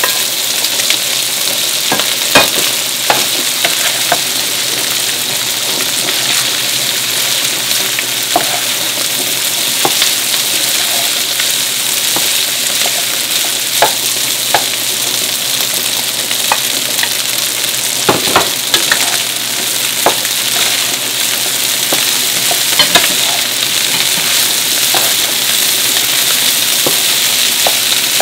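Rice and diced char siu sizzling steadily in a hot pan as a wooden spatula stirs and turns them, with scattered scrapes and knocks of the spatula against the pan.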